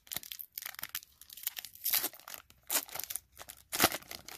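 Foil wrapper of a hockey-card pack crinkling and crackling in the hands as cards are drawn out, in a string of short crackles with the loudest near the end.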